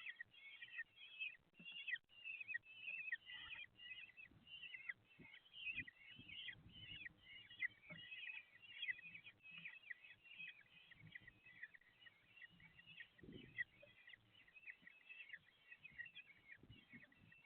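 Common kestrel chicks begging: a dense run of short, high calls, several a second, most falling in pitch, with faint knocks of movement underneath.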